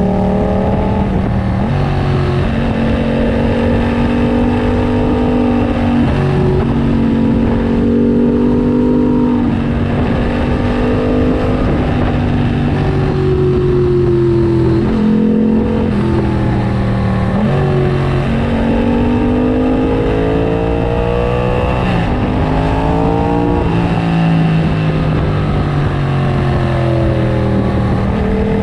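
Yamaha FZ-07's 689 cc parallel-twin engine with a full aftermarket racing exhaust, ridden hard. The revs climb and fall repeatedly as the bike accelerates, shifts and slows, and several climbs are cut off by sudden drops in pitch at the gear changes.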